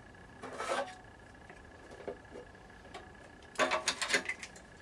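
Small metal parts or tools being handled on a workbench: a few faint knocks, then a quick run of clinks and rattles about three and a half seconds in.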